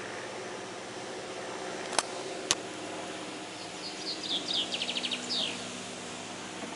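Biplane engine running with a steady drone. Two sharp clicks about two seconds in, and a songbird's chirps and rapid trill near the end.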